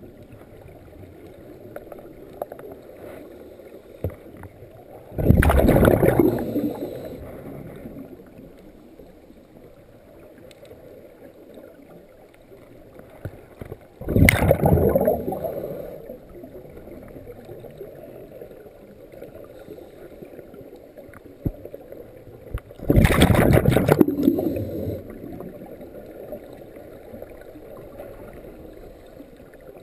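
Scuba diver's own regulator underwater: three exhalations, about nine seconds apart, each a loud burble of bubbles lasting about two seconds and trailing off. Between breaths there is quieter, steady underwater noise.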